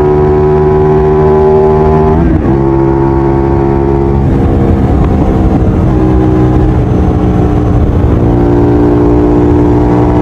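Hyosung GT-250R's 250 cc V-twin running through an Akrapovic exhaust, loud and holding steady revs. The pitch drops sharply about two seconds in and again about four seconds in, then rises again about eight seconds in.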